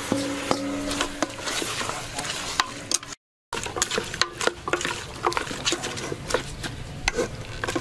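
Raw marinated pork chunks being tipped from a metal bowl into an aluminium pot and stirred with a plastic spatula: wet shuffling of meat with many small clicks and knocks against the metal. There is a brief silence a little before halfway.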